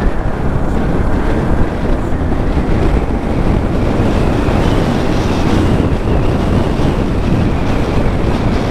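Steady wind buffeting the microphone of a helmet-mounted camera on a motorcycle moving at road speed: a dense, even rush of low rumbling noise.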